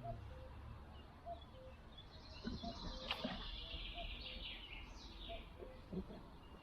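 A small songbird singing a fast chattering trill for about three seconds, over a low wind rumble, with one sharp click about three seconds in.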